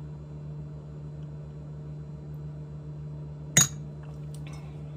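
A single sharp glass clink about three and a half seconds in, as a wine glass is set down on a hard surface, over a steady low hum.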